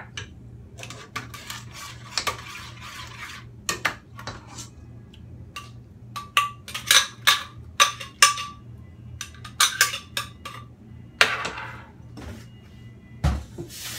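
A spoon scraping and tapping inside a blender jar to knock out the last of the blended tamarind sauce: a run of irregular clinks and knocks, some ringing briefly, with a heavier knock near the end.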